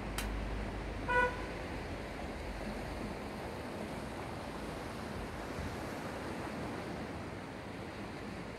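Sea waves washing steadily on the shore, with a short horn toot about a second in.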